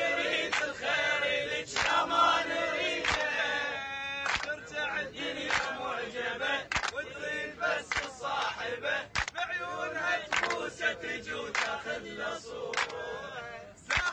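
A group of young men chanting a song together and clapping in time, with sharp claps on a steady beat a little slower than once a second.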